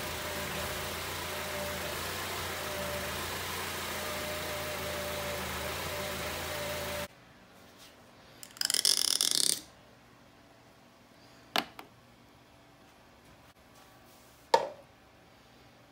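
Honda CR-V engine idling steadily, which cuts off abruptly about seven seconds in. Afterwards, a burst of hiss lasting about a second, then two sharp clicks about three seconds apart.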